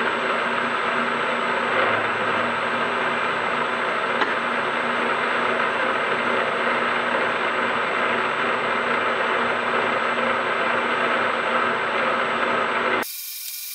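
Milling machine running steadily while its cutter mills a spline groove along an axle shaft held in an indexing head, the table moving under feed. About 13 seconds in the sound cuts off abruptly to a quieter, higher-pitched whir.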